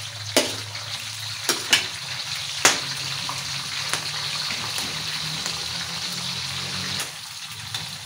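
Sliced red and green bell peppers frying in hot oil in a large black pan over a wood fire: a steady sizzle that grows stronger about three seconds in and eases near the end. A few sharp clinks of a metal skimmer against the pan come in the first three seconds.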